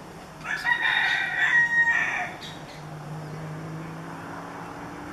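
A free-roaming feral rooster crowing once, a single cock-a-doodle-doo of about two seconds starting about half a second in.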